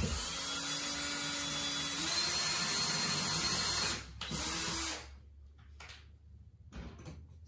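Cordless drill boring a pilot hole for a blind bracket screw: the motor runs steadily for about four seconds, its pitch stepping up about halfway, then stops, followed by a short second burst and a few light clicks.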